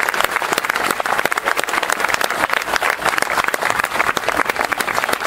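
A crowd applauding, many hands clapping steadily together.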